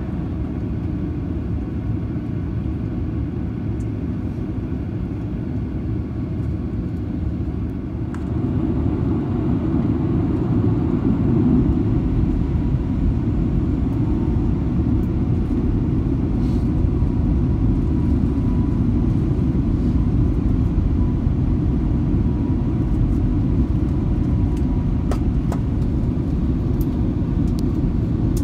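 Cabin noise of a Boeing 737-900 on the ground with its CFM56 jet engines running: a steady low rumble that grows louder about eight seconds in.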